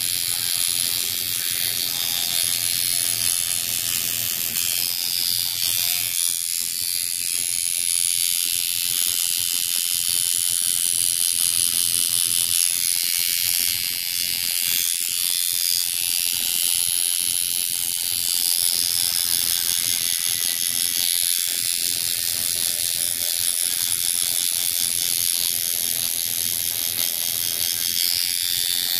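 Coil tattoo machine buzzing steadily as the needle works ink into skin.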